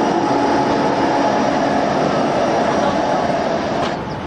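A real British Rail Class 71 electric locomotive running, a steady rumbling train noise with a droning tone held through it. The sound dips slightly near the end.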